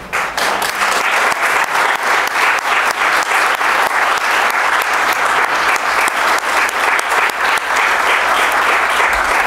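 A congregation applauding: dense, steady clapping from many people that starts suddenly and keeps up without letting off.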